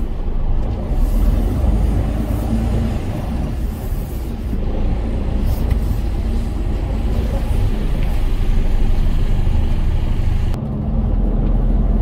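Diesel truck tractor unit's engine running at low revs while it couples up to a semi-trailer. A rushing noise over the engine cuts off near the end.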